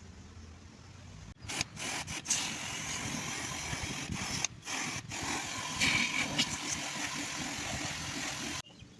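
Pressure-washer jet spraying water, a loud steady hiss that starts about a second and a half in, breaks off briefly several times as the trigger is released, and cuts off sharply near the end.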